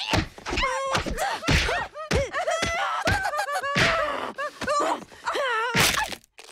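Fight sound effects: a quick series of punch, chop and slap impacts and body thuds, mixed with short shouts, grunts and pained cries from the fighters.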